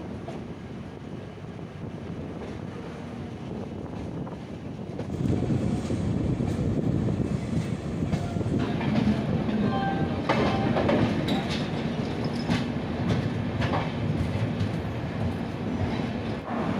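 Passenger train running, heard from an open coach doorway: a steady rumble with the wheels clattering over the rail joints. It grows louder about five seconds in, with a run of sharp clacks through the middle.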